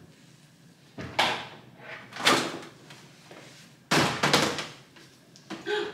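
Wooden closet doors in front of a stacked washer and dryer being opened: a few knocks and bumps about a second and two seconds in, and the loudest cluster of quick knocks about four seconds in.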